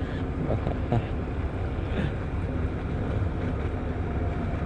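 A steady low rumble with a faint steady hum, with a couple of light clicks about a second in.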